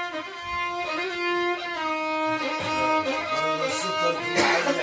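Solo violin playing a slow melody of long held notes that step from pitch to pitch, with a brief burst of noise near the end.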